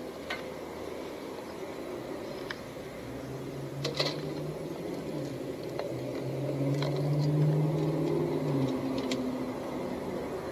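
A small motor running with a steady hum that starts about three seconds in and rises slightly in pitch before easing off near the end, with scattered light clicks.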